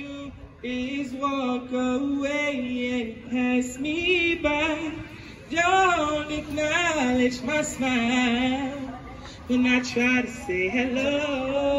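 A man singing karaoke into a corded microphone, his voice amplified through a portable party speaker: long held notes that bend and slide, with short breaks between phrases.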